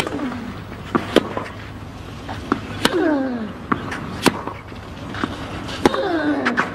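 Tennis rally on a clay court: a string of sharp racket strikes on the ball, several of them paired with a player's grunt that falls in pitch.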